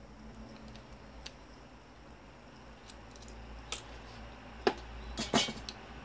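Metal parts and hand tools clinking while a microwave oven is being taken apart: scattered light clicks, then a sharp clink about four and a half seconds in and a louder clatter just after five seconds.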